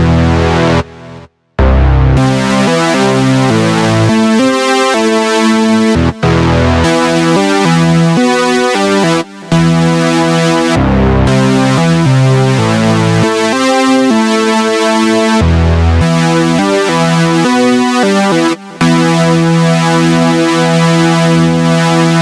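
Synthesizer keyboard music: sustained chords over a low bass line, changing every second or so. It cuts out briefly about a second in, with a few shorter gaps later.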